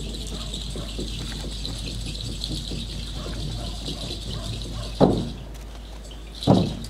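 Light rattling and clinking of the flagpole's halyard and clips as the flag is readied for raising. Near the end, two loud low thumps about a second and a half apart.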